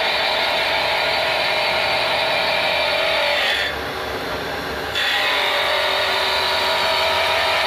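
Lathe-mounted tool post grinder grinding the friction face of a spinning truck clutch pressure plate: a steady high grinding hiss over the whine of the motors, as the face is resurfaced. About halfway through, the wheel comes off the metal for a second or so and only the running motors are heard, then it bites again.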